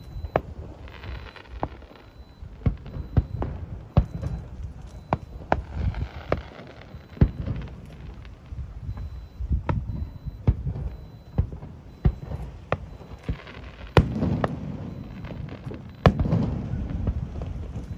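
Aerial fireworks display: a string of sharp bangs at irregular intervals over a low rumble.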